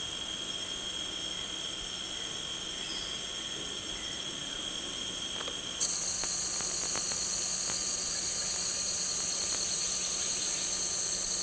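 Rainforest insect chorus: steady, shrill, high-pitched buzzing tones. About six seconds in, the chorus switches abruptly to a louder, higher set of tones.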